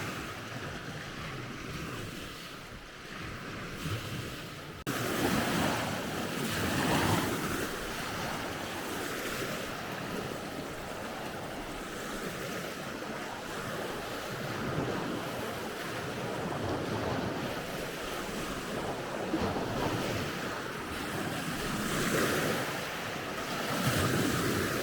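Wind rushing over the microphone in gusts that swell and fade every few seconds, with a sudden step up in level about five seconds in.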